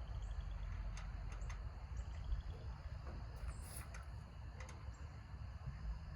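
Faint outdoor background: scattered short, high chirps and ticks, with a brief louder burst about three and a half seconds in, over a steady low rumble.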